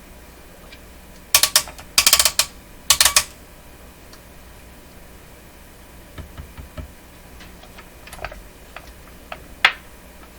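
Rotary selector switches on an Advance Instruments OS250 oscilloscope clicking through their detents: three quick runs of sharp clicks about a second in, then fainter single clicks near the end.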